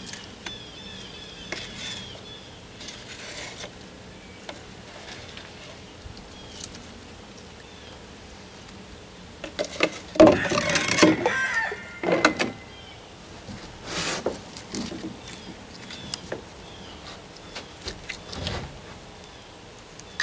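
Hand work with thickened epoxy: soft scrapes and rubs, with a louder cluster of knocks and crinkles about ten to twelve seconds in as the plastic mixing cup is handled and scooped from, and a few smaller knocks later.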